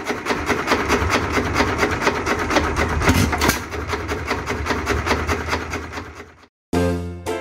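Associated Chore Boy single-cylinder hit-and-miss engine running steadily: a rapid, even mechanical clatter of about six clicks a second over a low throb. It fades out about six seconds in, and after a brief silence music with a saxophone begins near the end.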